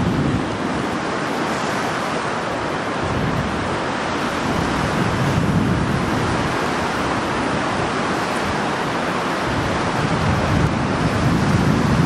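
Wind blowing across an open marsh: a steady rushing hiss, with gusts rumbling low on the microphone that grow a little stronger near the end.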